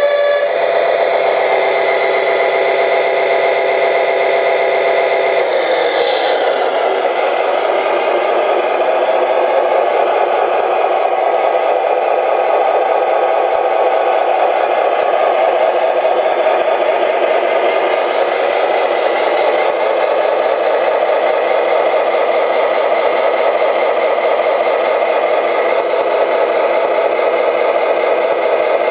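Simulated truck engine idling steadily from an RC model fire engine's sound module, thin and without deep bass as from a small speaker. A steady chord of several tones plays over it and cuts off about six seconds in.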